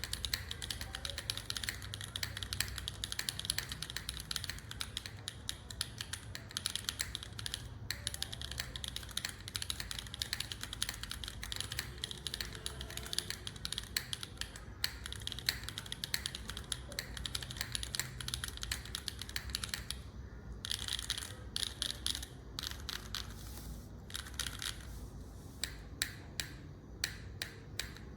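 Typing on a QK60 gasket-mount mechanical keyboard with a carbon-fibre plate and no foam, fitted with linear switches (Gateron Pure Sky tops on Cherry Vintage Black) and GMK doubleshot keycaps. Fast continuous keystrokes most of the time, slowing to separate single key presses near the end.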